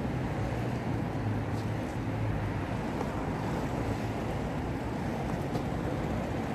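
Steady city street noise: a low rumble of road traffic.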